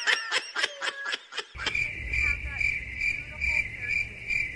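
High-pitched laughter for about the first second and a half, then it cuts off and crickets chirp steadily at about three chirps a second over a low rumble.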